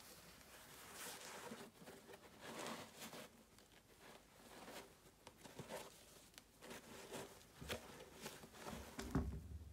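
Gloved hands handling a suede and textile sneaker: soft rustling and rubbing of glove fabric against the shoe and its laces, with light clicks. A low thump comes near the end.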